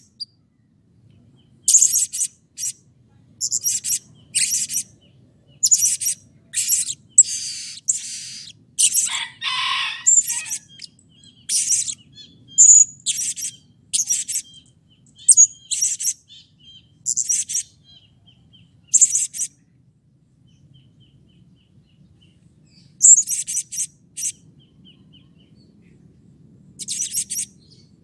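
Blue-crowned hanging parrot (serindit) giving shrill, high-pitched chirping calls, each short and sharp, in quick runs, with a pause of a few seconds about two-thirds of the way in before a few more calls.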